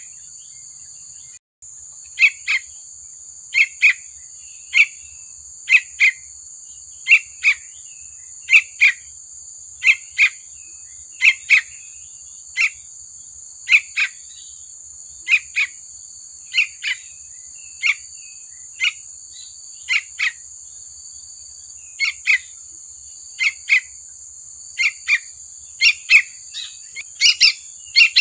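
Young yellow-vented bulbul (trucukan) calling: short chirps, mostly in pairs, repeated about once a second, over steady high-pitched tones.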